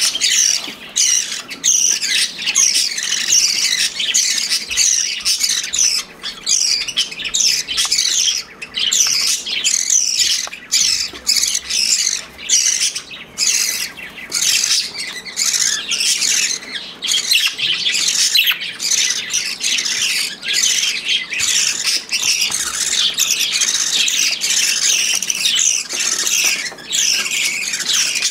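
A brood of budgerigar chicks begging for food, many rapid, high, falling calls overlapping without a break.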